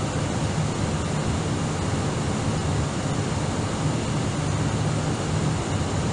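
Steady cabin noise inside an Airbus A319 airliner descending on approach: an even rush of engines and airflow with a low hum underneath.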